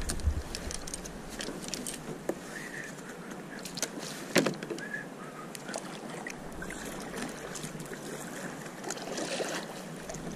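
Small sea waves lapping against a kayak hull, with scattered light clicks and knocks of gear on the boat; the loudest knock comes about four and a half seconds in.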